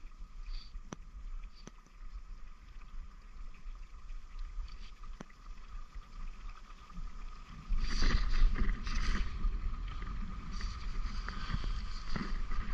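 Creek water running, with a low rumble on the microphone and a few faint clicks; about eight seconds in the sound gets much louder and rougher.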